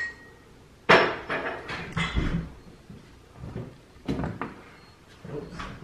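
A series of irregular knocks and clatters, the loudest about a second in, with smaller ones following every half second or so.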